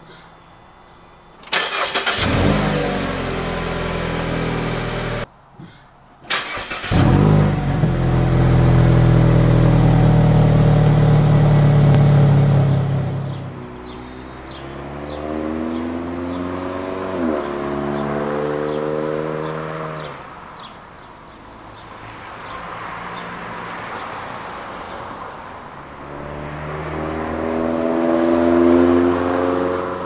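Mazda3 four-cylinder engine through an aftermarket Borla exhaust, started twice: each time it fires suddenly and settles into a steady, deep running note. It is followed by cars accelerating along a road, their exhaust notes rising and stepping up through gear changes.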